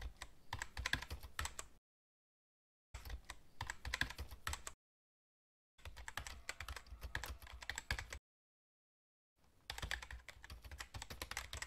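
Rapid typing on keys, a keyboard-clatter sound effect, in four bursts of about two seconds each with dead silence between them.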